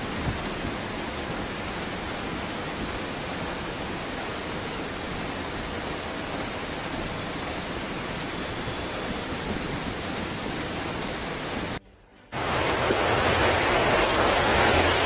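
Muddy floodwater rushing through a city street during a flash flood, a steady rush of water. About twelve seconds in it cuts out for a moment and comes back louder.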